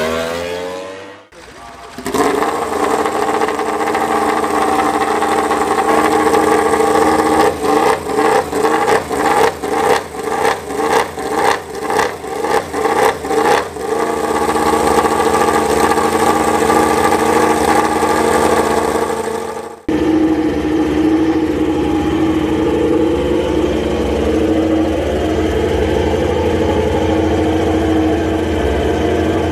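Yamaha YZR-M1 MotoGP racing motorcycle's inline-four engine running, blipped in a run of quick throttle revs, nearly two a second, before settling to a steady note. Near the end the sound cuts abruptly to another M1 engine running steadily at a lower pitch.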